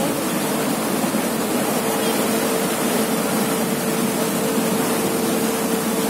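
Steady rushing of a ferry's churning propeller wake, with a steady engine hum underneath.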